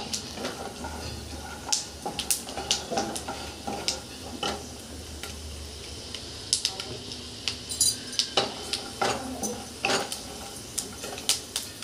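A wooden spatula stirring peanuts in a nonstick kadhai, knocking and scraping against the pan at irregular intervals over a faint sizzle of the peanuts frying in a spoonful of oil.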